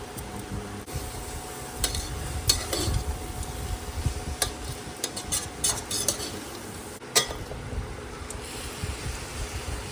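Potato and cabbage sabzi being stirred in a pan with a spatula: scraping and a string of sharp knocks and clinks against the pan, over a low sizzle.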